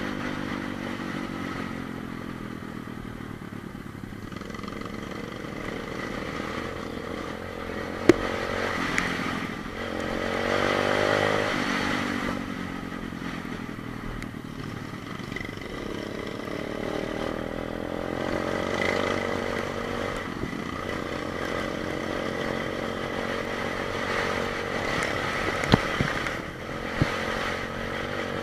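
125 cc pit bike engine running under riding, its revs rising and falling repeatedly. Sharp knocks come about eight seconds in and a few more near the end.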